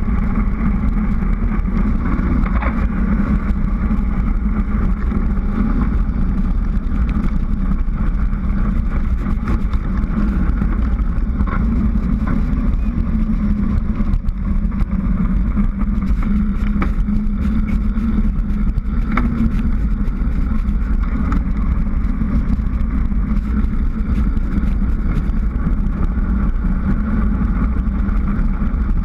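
Steady wind rush and road rumble on a bicycle-mounted GoPro's microphone during a fast downhill descent on asphalt.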